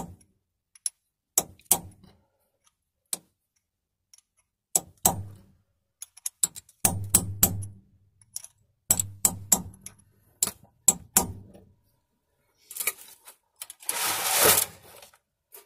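A small chisel being struck to bend back the metal locking tab on the output-flange bolt of a Turner T5A gearbox: a string of sharp, irregular taps, then a rasping scrape lasting about a second and a half near the end.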